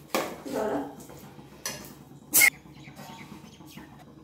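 Steel spoon stirring a thick curd masala in an aluminium pressure cooker, with one sharp ringing metallic clink about two and a half seconds in as the spoon strikes the pot.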